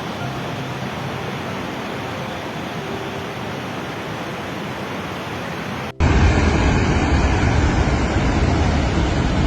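Steady rushing noise of the flooded Teesta river. About six seconds in it cuts abruptly to a louder, deeper rush.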